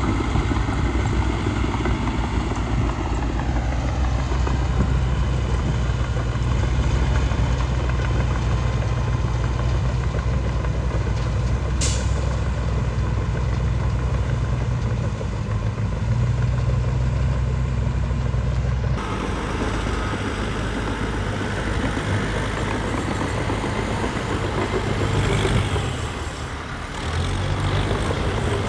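Diesel engines of earthmoving machinery working steadily, a low engine drone. About two-thirds of the way through the sound changes abruptly to a different, noisier engine mix, and there is a brief lull near the end.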